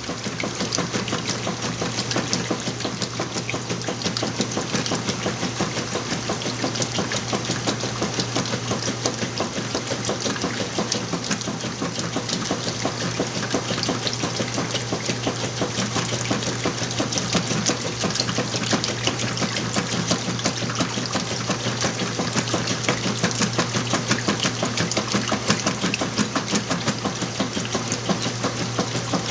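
Whirlpool washing machine running its wash, a steady motor hum under continuous water noise.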